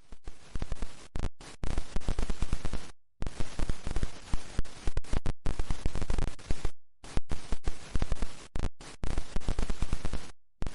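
Harsh crackling static in rapid stuttering pulses, several a second. It cuts out dead a few times and starts again.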